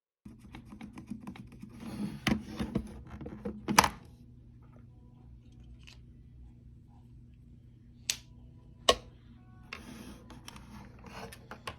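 Handling noises with several sharp mechanical clicks; the loudest come about four and nine seconds in. A low steady hum runs underneath.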